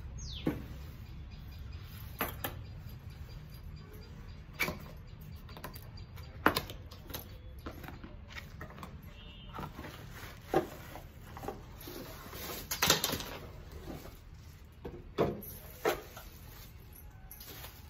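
Cardboard box and packaging being handled and opened: scattered taps, knocks and rustles at irregular intervals, thickest about two thirds of the way in, over a steady low hum.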